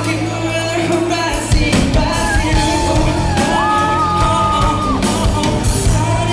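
Live band playing with a male vocalist singing through the PA, with drums and bass underneath; the singer holds one long note about halfway through. The sound rings in a large hall.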